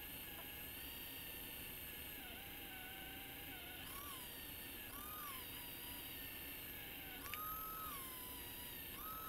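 Small electric motor and drive of a vintage Tyco Mantua 0-4-0 HO-scale steam locomotive running under power, its driving wheels spinning against a track-cleaning pad so that the rust and dirt scrub off. It makes a faint, high whine whose pitch wavers and rises briefly several times as the load on the wheels changes.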